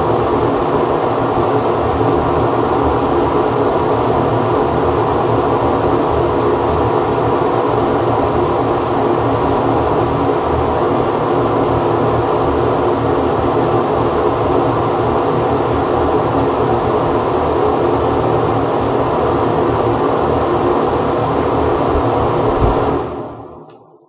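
Ventilation fan running steadily, a dense, even whir with a low rushing hum, fading out over about a second near the end.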